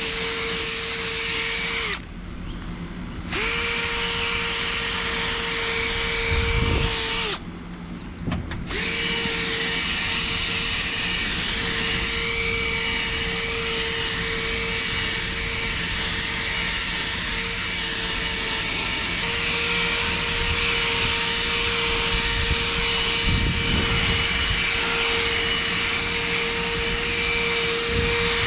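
A high-speed electric power tool running steadily with a high whine. It is switched off twice for about a second, winding down and back up each time.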